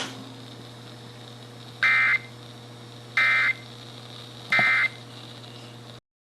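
Emergency Alert System end-of-message data bursts: three short buzzy digital tones about a second apart, marking the close of a broadcast severe thunderstorm warning.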